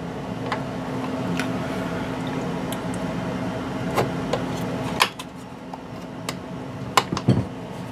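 Small clicks and taps of metal parts being handled as a retaining clip is worked back onto a stand mixer's tilt-head hinge latch, over a steady hum that stops about five seconds in.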